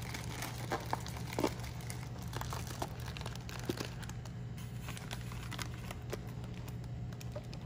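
Plastic fish-shipping bag crinkling and rustling in the hands as the outer bag of a double-bagged fish bag is worked and its top twisted closed, with many small crackles. A steady low hum runs underneath.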